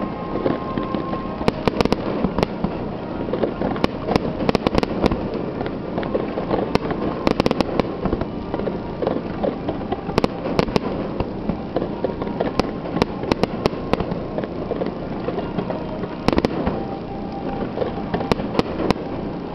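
Aerial fireworks in a finale barrage: many sharp bangs in quick clusters over a continuous rumble and crackle of bursting shells.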